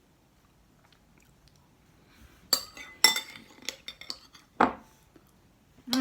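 Cutlery clinking against dishes: after a quiet start, a handful of sharp clinks with a short ring in the second half, plus a duller knock near the end of the fifth second.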